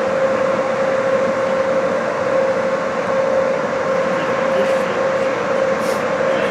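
Steady mechanical drone with a constant mid-pitched hum, the running machinery of an indoor ice rink, even in level throughout, with a brief faint hiss about six seconds in.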